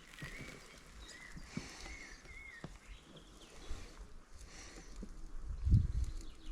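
Quiet streamside outdoor ambience with scattered soft rustles and clicks. A thin, wavering whistle-like tone sounds for the first couple of seconds, and a low rumble of handling or wind builds near the end.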